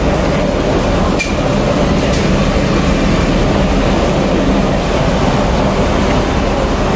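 Steady roar of air and machinery in the boarding doorway and cabin of a Boeing 737-900ER at the gate, with one sharp knock about a second in.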